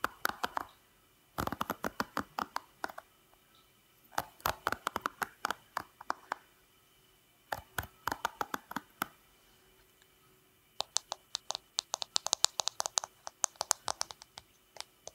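Fingertips raking and flicking across the bristles of a hairbrush held close to the microphones, making rapid crisp clicks and scratches. The sound comes in several short runs with pauses between them, and the last run, near the end, is the longest and brightest.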